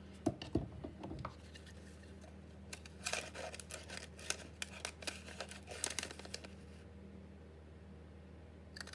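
Scissors snipping paper in short bursts of cuts and rustles, falling quiet for the last couple of seconds.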